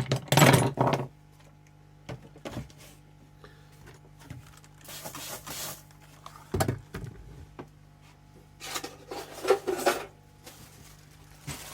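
Hand tools being handled on a table: irregular knocks, clinks and rubbing as screwdrivers are picked up, turned over and set down, loudest in the first second and again about six and a half seconds in.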